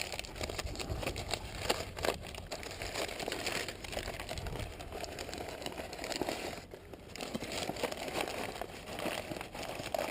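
Bags being crumpled and handled, a continuous crinkling and crackling.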